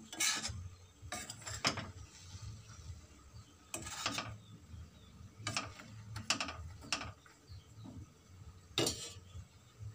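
Metal spoon scraping and knocking against a steel wok as flat green beans are stirred, about eight irregular strokes.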